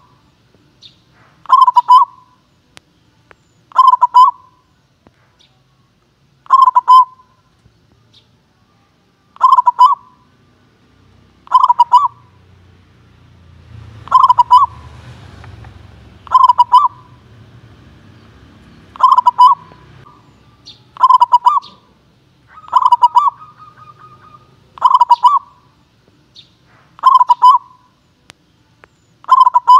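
Zebra dove (perkutut) singing its cooing call, the call of a competition-class bird: a short stuttering phrase repeated about every two to three seconds, some thirteen times.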